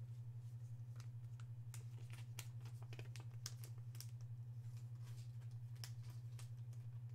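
Faint crinkles and light clicks of a thin clear plastic card sleeve being handled as a trading card is worked into it, over a steady low hum.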